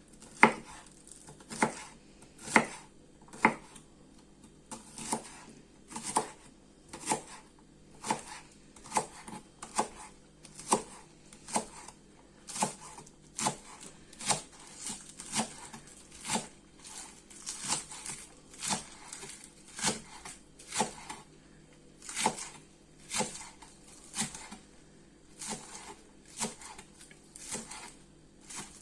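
Kitchen knife chopping salad ingredients on a cutting board: sharp, steady cuts at about one a second.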